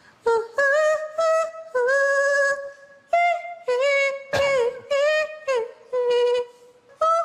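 Grey-and-white tabby cat meowing in a long run of short calls, each wavering in pitch, with brief silences between them. One louder, sharper meow comes about four seconds in.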